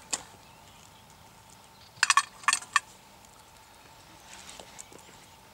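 Small hard objects clinking against each other: a single click at the start, then a quick flurry of sharp clinks about two seconds in, in three close groups.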